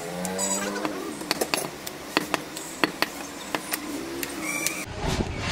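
Meat-market ambience: irregular sharp knocks and clicks with faint voices in the background. About five seconds in it changes abruptly to a steady rushing noise.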